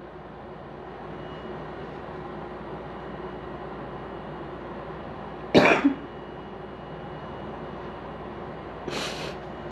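A man coughs once, sharply, about halfway through, over a steady low hiss. A shorter noisy breath follows near the end.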